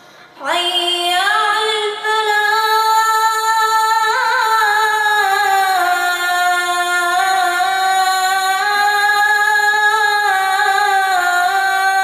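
A child's voice chanting Quran recitation in the tajweed style: one long melodic phrase held in a single breath, moving through small ornamented turns of pitch, starting about half a second in.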